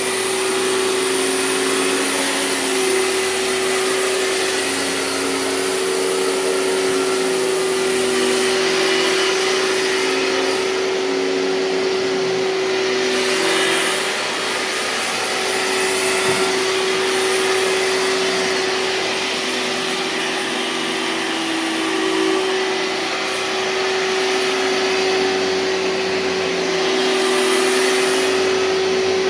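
2003 Hoover TurboPower 5000 canister vacuum running: a loud, steady motor whine with one strong hum note, swelling and dipping a little in level.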